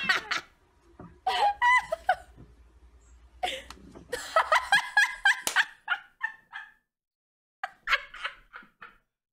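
A woman laughing hard in several bouts of quick, repeated pulses, with short pauses between bouts.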